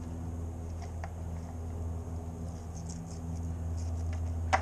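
Knife cutting the rib cage off a sheepshead fillet on a plastic cutting board: faint scraping and small clicks of the blade through the rib bones, with one sharper click near the end. A steady low hum runs underneath.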